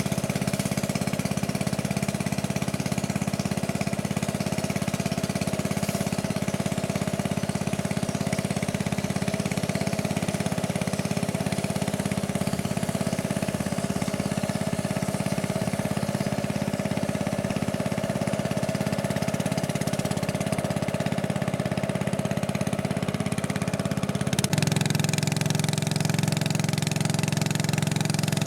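A small motorboat's engine running steadily at an even pitch. About 24 seconds in, the sound changes abruptly: it gets slightly louder and its low tone shifts.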